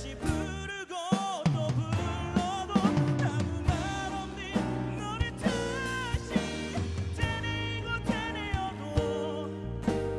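Live band playing a slow Korean pop ballad, with drum kit, acoustic and electric guitars and keyboards under a wavering lead melody.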